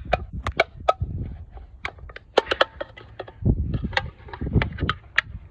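Thin aluminium drink can being cut open by hand, the metal giving a run of irregular sharp clicks and crackles, with a couple of dull thumps of handling.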